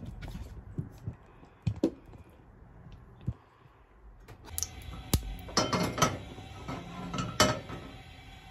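Irregular light knocks and clinks of kitchen handling around a stainless steel frying pan on a gas stove. A few come early, and a denser run follows from about four and a half to seven and a half seconds in.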